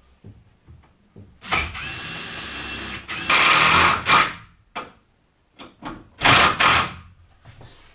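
Power drill driving screws into wood: one long run starting about a second and a half in that gets louder over its last second, then a second short run near the end.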